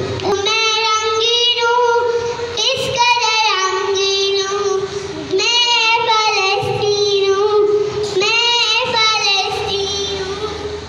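A young girl singing an Urdu nazm into a microphone, in long phrases of held, wavering notes with short breaths between them; her singing trails off near the end.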